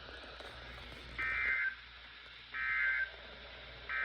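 Emergency Alert System end-of-message data tones: three short, identical bursts of digital data about a second apart, closing the broadcast snow squall warning.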